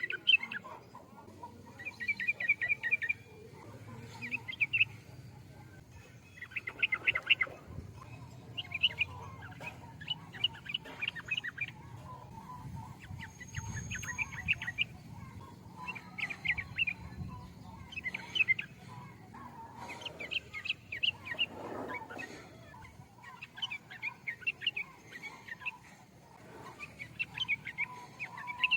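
Sooty-headed bulbul (trucukan) singing: short phrases of quick notes repeated every second or two, with fainter lower warbling underneath.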